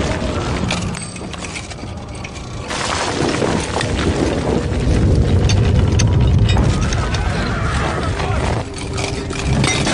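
A deep rumble that swells in the middle, with scattered cracks and crashes of breaking and falling material, mixed with music. It fits the film's earthquake as the temple veil tears.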